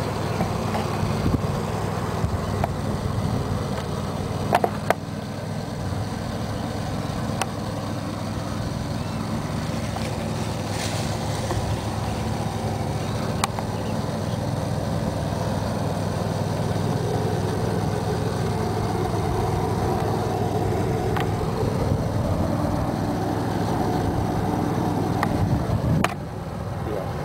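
Steady low rumble of a running engine, with a few faint clicks.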